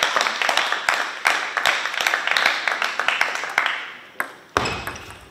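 Scattered hand clapping from a few spectators, applauding a point just won in a table tennis match, thinning out and fading after about four seconds. There is a single sharp tap near the end.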